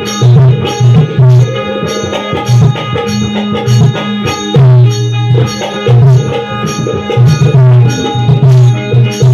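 Shakti-Tura folk music: a hand drum plays a fast, driving rhythm with deep booming strokes and sharp slaps, over steady held tones.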